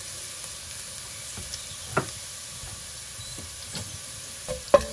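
Hot oil sizzling steadily in a steel pot with chopped garlic and freshly added mustard seeds, with a few sharp clicks, about two seconds in and near the end.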